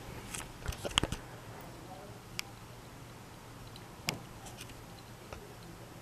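Hampton Bay Glendale ceiling fan running with a steady low hum, with scattered light clicks and ticks over it: a quick cluster about a second in, then single ticks.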